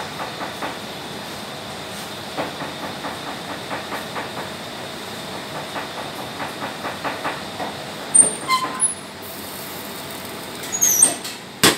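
A steady hiss with many small crackling ticks a few tenths of a second apart. After about eight seconds come a few short ringing metal clinks, then high squeaks, and one sharp knock at the very end.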